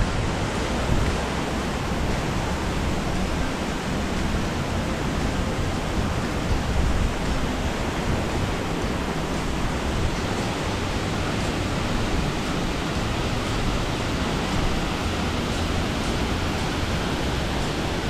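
Steady rush of Khlong Lan Waterfall's falling water, an even unbroken roar.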